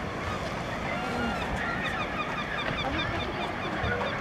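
Gulls calling in a run of short, quickly repeated cries, over steady background crowd chatter.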